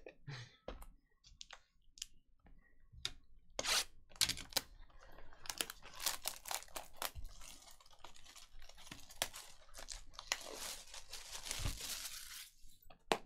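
Foil-wrapped trading card packs and a cardboard card box handled on a table: scattered crinkles and taps, then a longer stretch of tearing and crinkling near the end as the box is opened.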